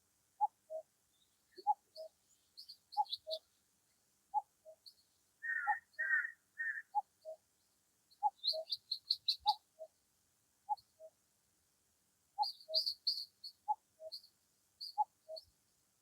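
Birds singing. One bird repeats a low two-note call, the second note lower, about every second and a half, while other birds give short high chirps throughout and a brief burst of warbling about six seconds in.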